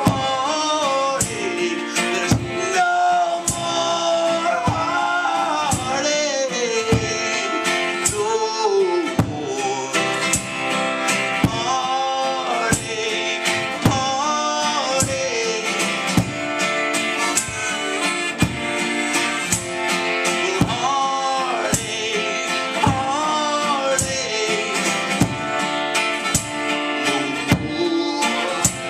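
Live band music with no lyrics: a steady beat under a gliding, wavering lead melody line.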